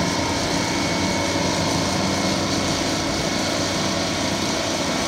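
Euclid TC-12 crawler dozer's twin Detroit Diesel 6-71 two-stroke engines running steadily under load as it pushes a blade full of dirt, with a thin steady high whine over the engine sound.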